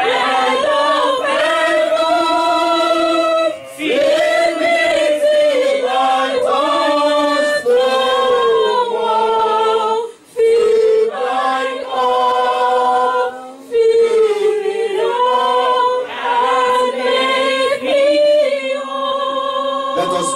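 A man singing a slow gospel song unaccompanied into a microphone, in long held phrases with short breaks for breath.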